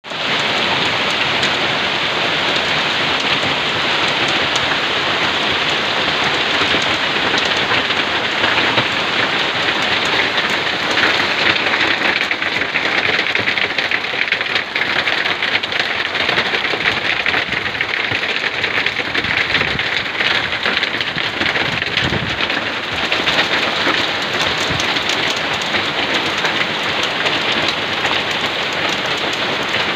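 Heavy hailstorm pelting down: hail and rain striking the ground and foliage as a steady, dense hiss of countless small impacts.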